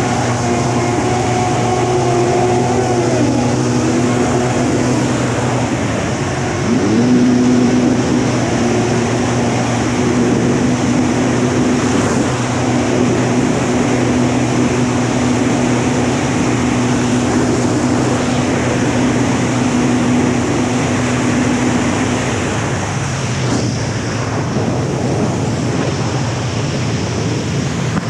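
Swapped-in Kawasaki 1100cc two-stroke engine of a stand-up jet ski running hard: its pitch climbs about 7 seconds in and holds steady at full throttle through a top-speed run of roughly 100 km/h, then eases off about 22 seconds in.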